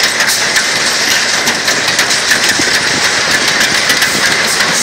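GCI wooden roller coaster train rolling along the track: a steady rattle of wheels on the wooden track with regular clicks, heard from the back row as the train comes into the station.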